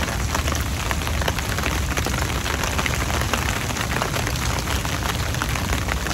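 Steady rain falling on an open umbrella held just overhead: a dense patter of small drop ticks over a steady hiss, with a low rumble underneath.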